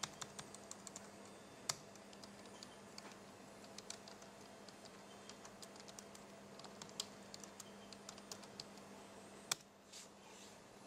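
Faint typing on a computer keyboard: a run of quick, irregular keystrokes, with a couple of louder clicks among them, one near the end. A low steady hum runs underneath.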